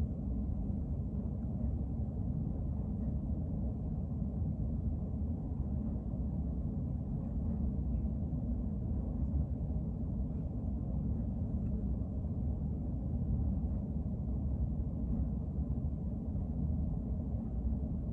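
Steady low rumble of background noise, even in level and without any clear beat or rhythm.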